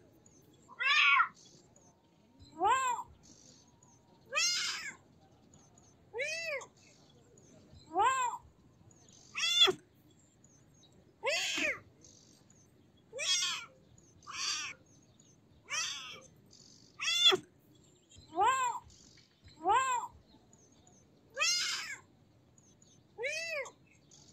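Kitten meowing over and over: about fifteen short, high calls, roughly one every one and a half seconds, each rising then falling in pitch.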